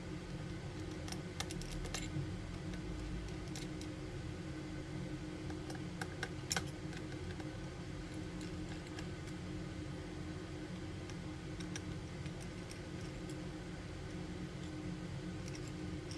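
Scattered small clicks and taps of hand tools working on an iPhone 7, over a steady background hum.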